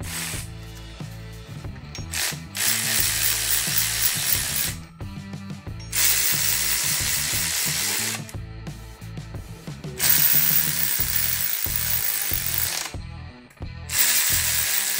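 Cordless electric ratchet spinning flywheel bolts down on a Subaru EJ25 engine, in four bursts of two to three seconds with short pauses between, over quiet background music.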